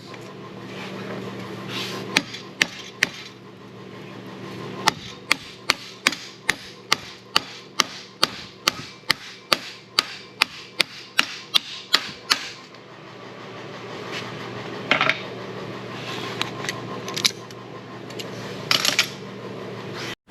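Hand hammer striking a hot mild steel bar to forge a bend: three blows about two seconds in, then a steady run of about two blows a second for some seven seconds, with a few scraping knocks near the end. A steady low hum runs underneath.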